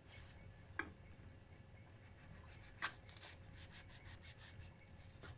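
Kitchen knife slicing apple pieces, its blade tapping the plastic cutting board twice, about two seconds apart, over faint room hum.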